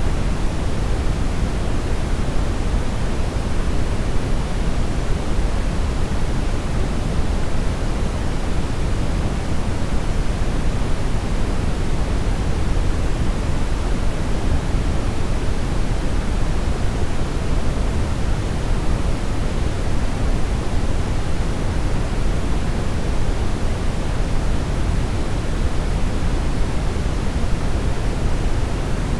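Steady brown noise: an even, deep rushing hiss, strongest in the low end and falling away toward the treble, with no changes or events.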